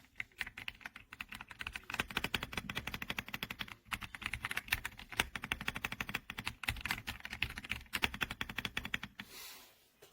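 Rapid typing on an RK Royal Kludge R75 gasket-mounted 75% mechanical keyboard: a dense run of keystroke clacks, pausing briefly about four seconds in and stopping shortly before the end.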